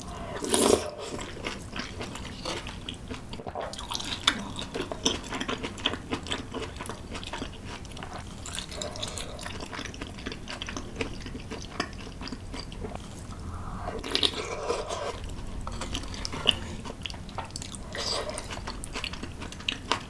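Close-miked eating sounds: chewing and biting food, with many small irregular crunches and wet mouth clicks, a little louder near the start and twice later on.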